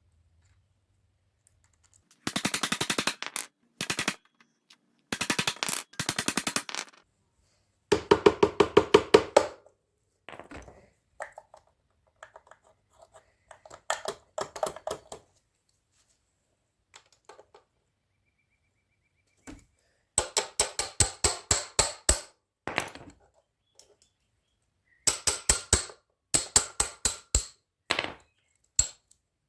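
Bursts of rapid mechanical clicking, about a dozen sharp clicks a second, each burst lasting one to two seconds with pauses between.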